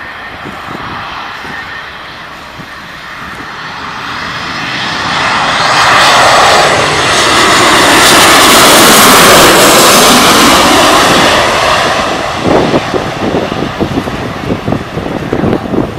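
Twin-engine jet airliner on final approach passing low overhead. The jet engine noise swells to its loudest as it goes over, sweeping in pitch, then fades away. Near the end, gusts of wind hit the microphone.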